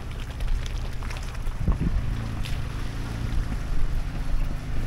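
Jeep Gladiator Rubicon's engine running at low revs as it crawls through a shallow creek and climbs the bank, its tyres splashing through the water. There are a couple of short knocks or splashes near the middle.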